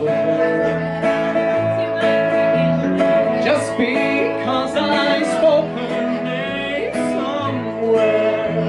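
A small band playing country music live on electric guitar, upright bass and acoustic guitar, with singing.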